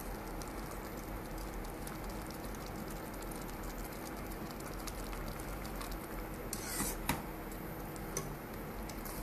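Metal spatula stirring thick, sticky vermicelli kesari in a nonstick kadai: a soft wet squishing over the simmering syrup. A few light knocks of the spatula against the pan come through, the loudest a little past the middle.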